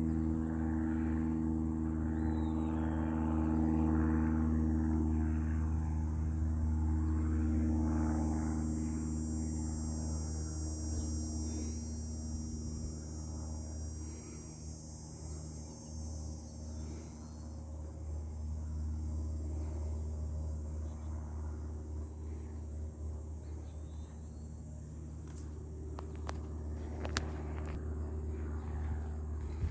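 Insects trilling in a steady, high-pitched, finely pulsing chorus over a low steady rumble, with a couple of sharp clicks near the end.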